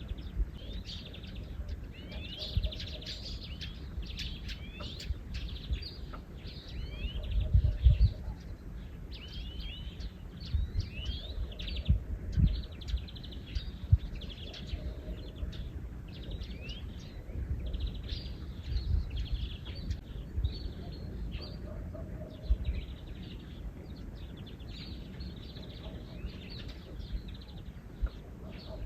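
Many small birds chirping and twittering in quick, overlapping calls of sweeping notes, over a low outdoor rumble with a few dull thumps.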